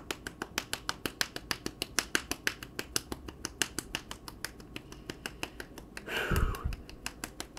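One person clapping hands rapidly and steadily, about six claps a second, as congratulatory applause. A brief louder noise cuts in about six seconds in.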